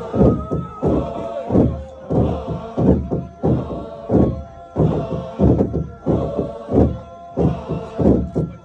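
A wooden Naga log drum beaten in a steady rhythm, about two heavy beats a second, while a group chants and sings along.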